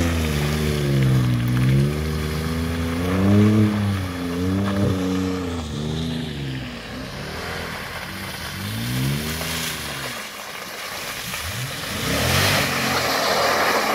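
A pickup truck engine revving up and down again and again as the truck churns through deep mud with its wheels spinning. Near the end there is a loud rush of spinning tires throwing mud.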